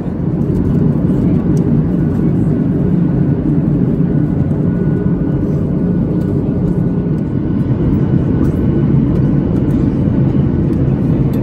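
Steady cabin noise inside a Boeing 737-800 in flight: a deep, even rush of engine and airflow noise heard from a seat over the wing.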